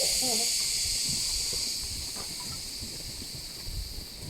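A high, steady insect chorus of the rainforest that fades gradually.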